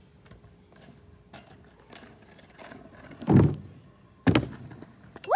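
Kick scooter jumping a plywood kicker ramp: a heavy thump as the wheels hit the ramp, then about a second later a sharp clack as the scooter lands on concrete. A rising-and-falling whoop of a voice starts right at the end.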